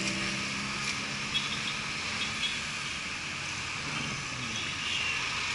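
Busy city street traffic: steady road noise from passing cars, jeepneys and motorcycles, with engines running.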